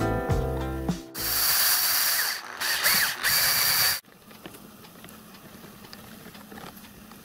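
Intro music ending about a second in, then a loud rasping clatter for about three seconds that cuts off abruptly. After it, faint irregular ticking of small brass change gears meshing as the miniature lathe's gear train and leadscrew are turned by a hand crank.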